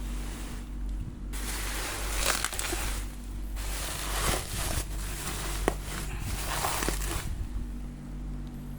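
Refrigerator packaging being handled during unboxing: crinkling and rustling in stretches a second or two long, with a few sharp clicks.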